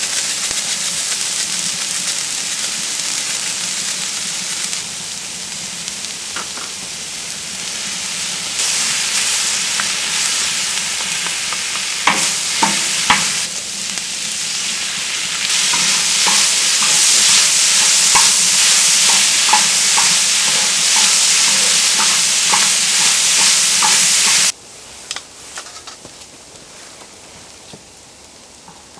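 Vegetables and sliced pork sizzling on a large hot cauldron-lid griddle while a wooden spatula stirs them. The sizzle grows louder about halfway through, after the raw meat goes in, with scattered short ticks from the spatula. It drops off suddenly near the end.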